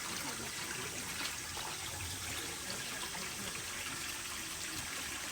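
Steady sound of flowing, trickling water.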